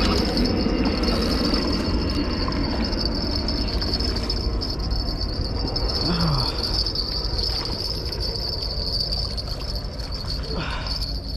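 A steady high-pitched whine over a low rush of wind and small waves at a rocky shoreline.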